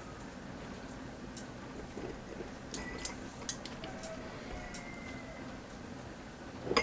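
A few faint, light clicks and taps of metal tongs against a stainless stockpot and glass mason jars as green beans are packed into the jars, over a steady quiet background hum.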